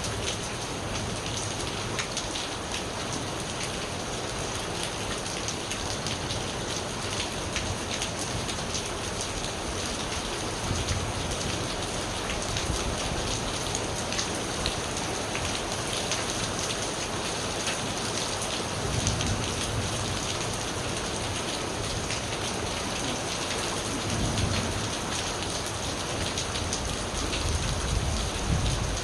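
Steady rain falling, with individual drops pattering. Low rumbles of distant thunder swell up a few times in the second half.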